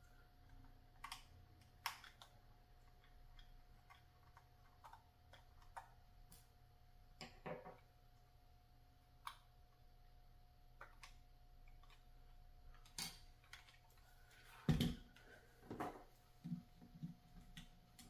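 Scattered clicks, taps and knocks of a plastic RC bulldozer model being handled and its battery cover taken off, with one louder knock late on and a run of quick small clicks near the end.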